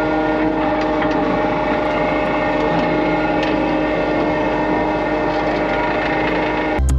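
Skid steer running steadily with its vibratory roller attachment, packing down freshly spread dirt; the engine holds a constant pitch.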